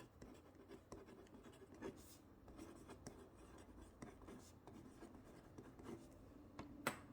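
Faint scratching of a Kuru Toga mechanical pencil's graphite lead writing on paper, with small ticks as strokes start and stop.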